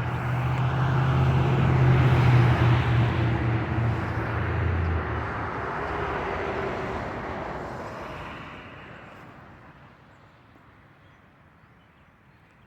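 A motor vehicle passing by. Its engine hum and road noise swell to a peak about two seconds in, the low hum drops out about halfway, and the noise fades away over the following seconds.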